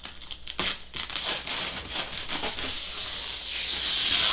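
Scratchy rubbing and rustling of packaging as the laser enclosure's parts are pulled out and handled, with short crackles throughout, getting louder and hissier toward the end.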